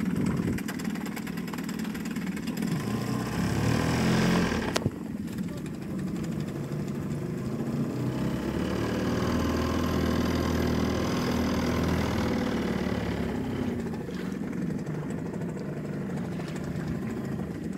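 Small boat's outboard motor running at low revs with a steady hum. It swells louder about four seconds in, then drops back after a single sharp click near five seconds.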